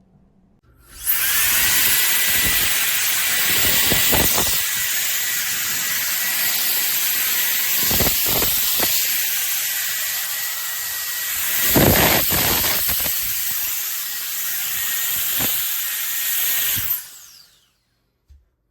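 Electric air duster running: a steady high motor whine over a rush of blown air, with a few stronger gusts along the way. It switches on about a second in, runs for about sixteen seconds, then switches off, the whine falling as the motor spins down.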